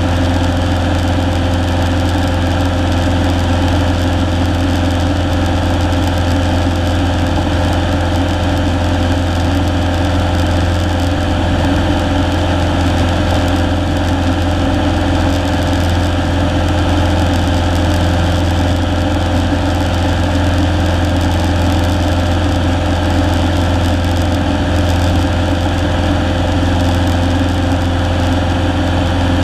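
Single-engine Cessna's piston engine and propeller running steadily in flight, heard from inside the cockpit as a loud, even hum with no change in pitch.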